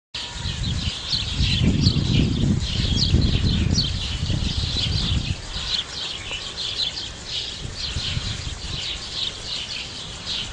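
Birds chirping: a dense, continuous run of short high chirps. A low rumble sits under them for the first five seconds, then fades.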